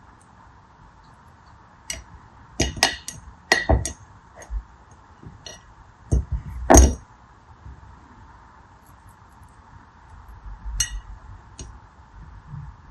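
Light clinks and taps of metal tweezers and translucent beads against ribbed glass dishes as the beads are picked out and dropped in one by one. The taps come in quick clusters through the first half, the loudest just past the middle, then two more near the end.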